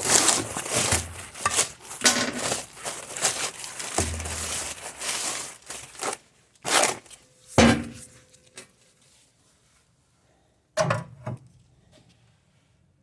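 Packaging crinkling and tearing amid handling clatter, followed by a few separate knocks, one with a brief metallic ring, and another pair of knocks near the end.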